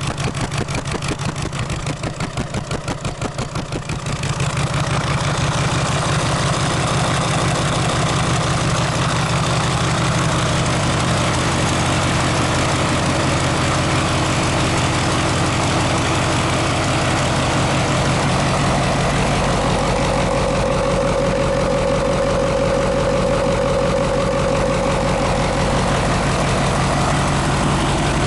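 Freshly rebuilt Mercedes-Benz OM442 V8 diesel engine on its first run: it turns over unevenly for about four seconds, then catches and idles steadily and smoothly. A steady whine joins the idle about two-thirds of the way in.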